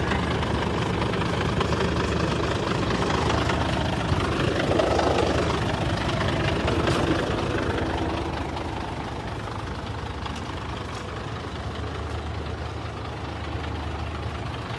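Scania 94 310 truck's diesel engine idling steadily, heard close up with the cab tilted, then fainter from about eight seconds in.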